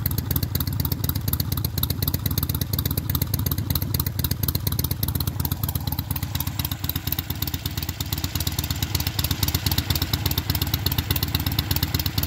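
2011 Harley-Davidson Sportster 883 SuperLow's air-cooled 883 cc V-twin idling through RC Exhaust straight pipes: a steady, even run of loud exhaust pulses with no revving.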